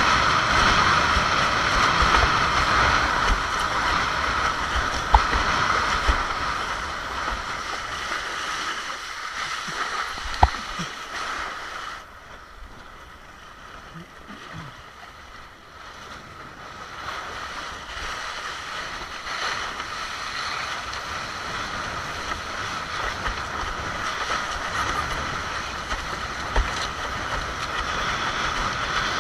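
Wind rushing over the microphone and water hissing and slapping under a windsurf board sailing fast through choppy water. Two sharp knocks, about five and ten seconds in, and the rush dies down for a few seconds near the middle before it builds again.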